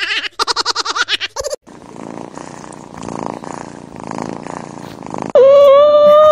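Domestic cat purring steadily, followed near the end by a loud, long held high note that rises and falls slightly. It opens with a short run of rapid pulsing sounds.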